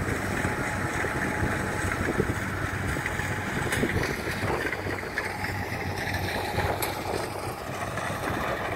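Kubota rice combine harvester running steadily as it cuts through the rice, a continuous machine drone.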